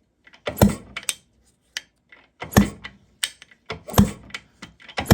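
Kickstarter of a 1973 Yamaha CT3's two-stroke engine being kicked over about four times, each kick a sharp clack and thud followed by lighter clicks. The engine does not fire: this is a spark test.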